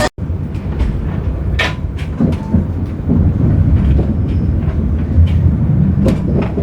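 A vehicle in motion: a steady low rumble with a few sharp clicks and knocks scattered through it.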